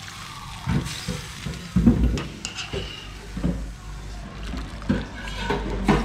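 Water dripping and splashing back into a wok as blanched greens are lifted out with a wire spider strainer. It comes with several short knocks of utensils against the pans, about one a second.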